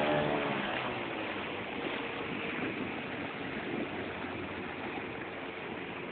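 Small motorboat under way through floodwater: a steady rush of water along the hull with the boat's motor running underneath.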